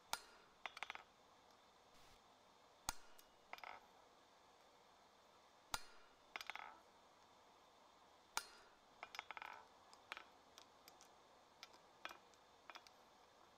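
A hand hammer strikes a tong-held 3/8-inch ball punch set on a hot mild-steel block on the anvil, laying out the rosette's petals. Four sharp blows come about three seconds apart, each followed by lighter clinks, with softer taps near the end.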